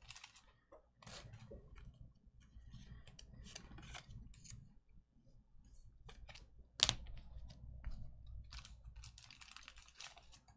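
Faint, irregular light clicks and taps, with one sharper knock about seven seconds in.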